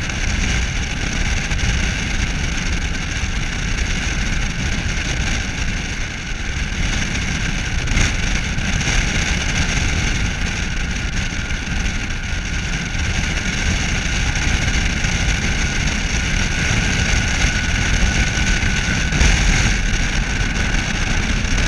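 Steady rumble of a vehicle driving at speed beside a moving empty coal train: tyre and wind noise on a vehicle-mounted microphone, mixed with the rolling of the empty coal cars' wheels on the rails.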